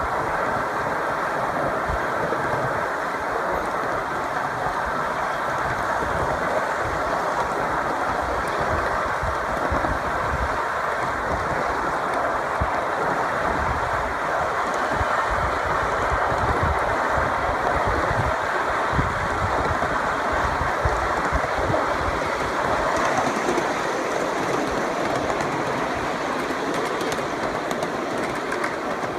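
1-inch-scale ride-on miniature train cars rolling along the track: a steady noise of steel wheels running on the rails, with an uneven low rumble underneath.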